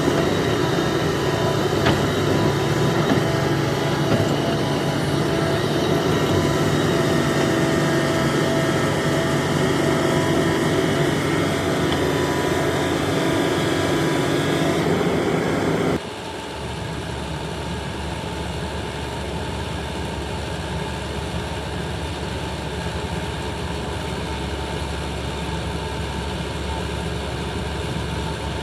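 Diesel engine of a Hitachi ZAXIS 350H excavator running steadily through loading work. About sixteen seconds in, the sound cuts abruptly to a quieter, deeper engine sound.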